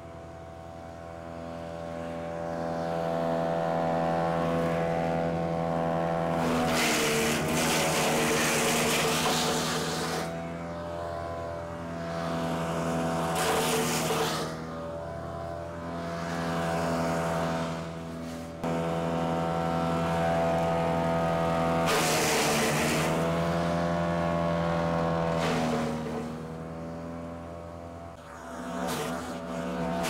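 Big Bear BBC72 wood chipper's gasoline engine running steadily while hard oak limbs are fed in and shredded in four loud grinding bursts, about a quarter of the way in, near the middle, about two-thirds through and at the end. The engine pitch dips under load with each bite, then recovers.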